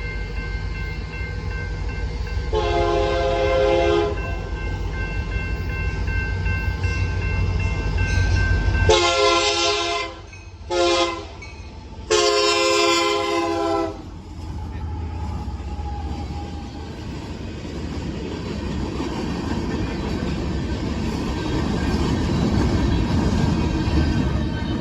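Union Pacific diesel locomotive passing and sounding its horn in four blasts (long, long, short, long), the standard grade-crossing signal, over the engine's low rumble. After the horn the hopper cars roll by with a steady rail noise that grows toward the end.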